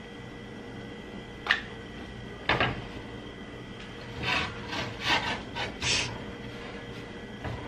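Corn tortillas being laid and shifted on a metal stovetop griddle: a sharp click about a second and a half in, then a knock, then several short scraping rustles a few seconds later, over a steady low hum.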